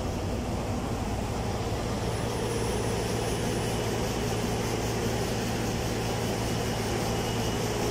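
Claas combine harvester running steadily while its unloading auger pours rapeseed into a trailer, with the tractor's engine running alongside; a constant machine drone with a low hum.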